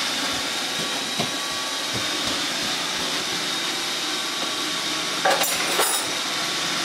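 Metal cutlery clinking twice, a piece of silverware set down against others, with a few soft knocks before it, over a steady background hiss.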